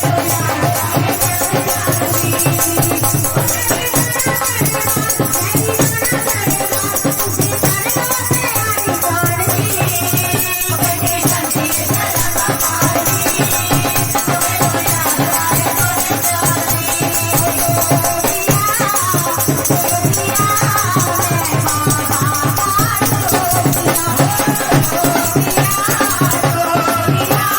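Devotional Hindi Krishna bhajan music: a wavering melody line over a steady, dense percussion beat.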